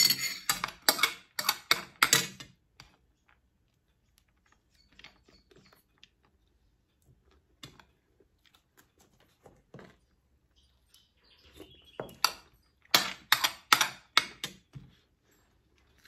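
Sounds of a person eating a meal of rice and pork by hand and with a spoon: two bursts of quick, sharp clicks and smacks, about three a second, near the start and again from about twelve seconds in, with faint scattered clicks between.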